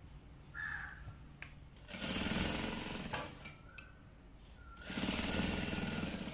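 Electric sewing machine stitching in two short runs, one about two seconds in and another near the end, the needle going in a fast, even rhythm.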